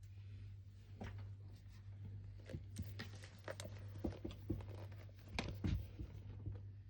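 Computer keyboard typing in slow, irregular key clicks and knocks, over a steady low electrical hum that starts abruptly at the outset.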